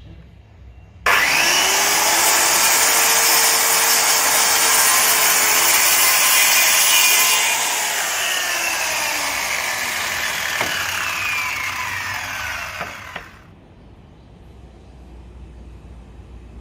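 Electric power tool working wood: a loud, continuous hiss that starts suddenly about a second in, eases slightly halfway through and cuts off after about twelve seconds.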